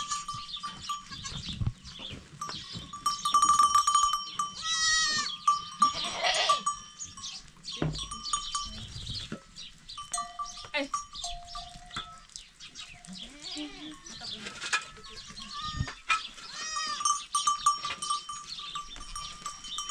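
Goats with bells around their necks, the bells clanking and ringing on and off, with a couple of bleats about a third of the way in.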